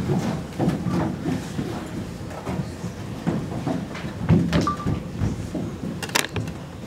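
Irregular soft thumps and shuffling of children's footsteps as they move about the stage, with a couple of sharp clicks near the end.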